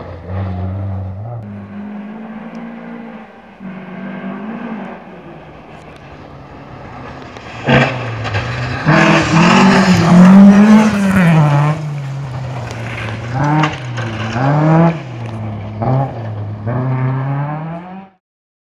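A rally car's engine runs hard on a gravel stage, approaching and passing close by, loudest about nine to eleven seconds in. The revs rise and fall repeatedly as the car is driven through, and the sound cuts off suddenly near the end.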